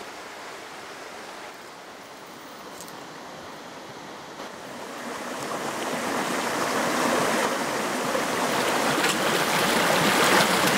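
Shallow rocky creek running over stones: faint at first, then swelling about halfway through into a steady, louder rush.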